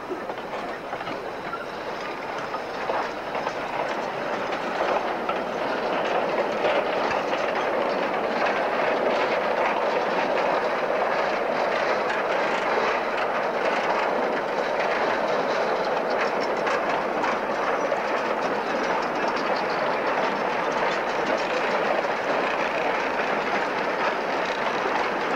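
Narrow-gauge train's carriages and a long string of four-wheeled slate wagons rolling past, their wheels clicking and rattling over the rail joints. It grows louder about five seconds in as the wagons come by and then keeps up a steady clatter.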